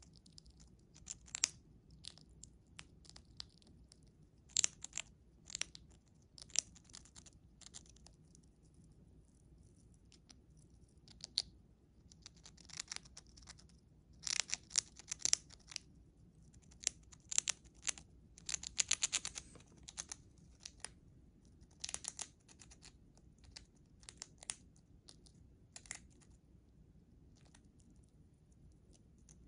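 Siberian chipmunk biting and chewing a crisp dried vegetable chip: quick, crisp crunches in irregular clusters, with short pauses between bites.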